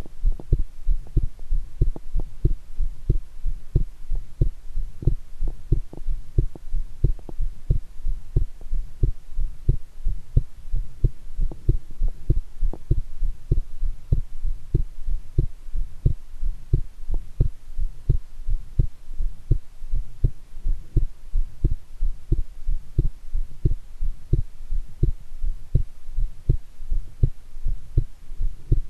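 A person's heartbeat recorded close up, beating strongly in a steady, regular rhythm of low thumps. It is a pounding pulse after a shower, heightened by excitement.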